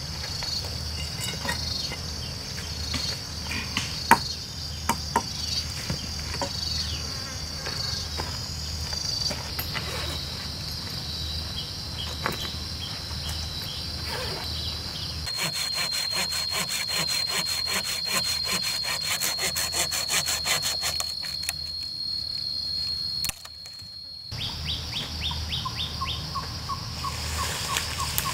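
Insects chirring steadily, with bamboo and wooden poles knocking, clacking and scraping as they are handled and dragged. Midway a faster, denser insect trill takes over for several seconds.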